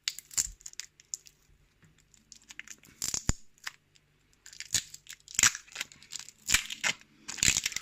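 Wrapping being peeled and torn off a key, in irregular crackling rips and crinkles, busiest in the second half.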